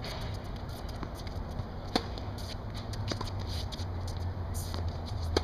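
Tennis rally: racket strikes on the ball, a sharp pop about two seconds in and another near the end, with a few fainter ticks between, over a steady low hum.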